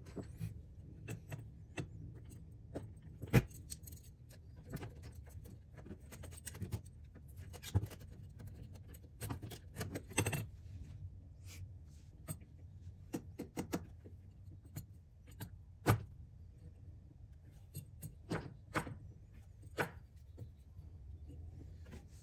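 Hand tools and small metal hardware clicking, clinking and knocking at irregular intervals while a throttle pedal is fitted, with two sharper knocks about three seconds in and near sixteen seconds. A low steady hum runs underneath.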